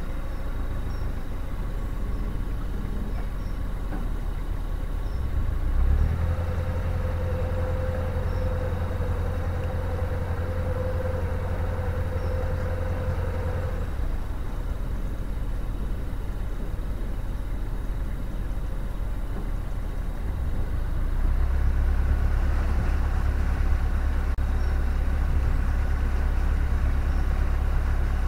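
Narrowboat's diesel engine running at low revs, throttled up about six seconds in with a steady whine, eased back at about fourteen seconds, then throttled up again at about twenty-one seconds. The boat is being worked between forward and reverse gear to turn it, since it has no steering in reverse.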